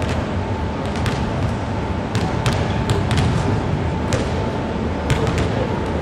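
Basketballs bouncing on a hardwood gym floor: irregular sharp thuds ringing in the hall over a steady background din.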